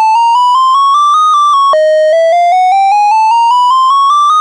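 Synthesizer arpeggiator climbing a chromatic scale one semitone at a time over about an octave, stepping back down a few notes, then jumping back to the bottom about two seconds in to climb again. The notes step with no glide between them: a stepped imitation of a police siren's wail.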